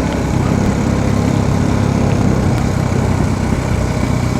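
Royal Enfield Bullet's single-cylinder engine running steadily on the move, its exhaust going put-put.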